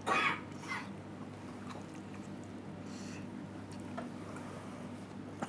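A person chewing a mouthful of soft simmered beef, with a short noisy sound at the start, over a steady low hum.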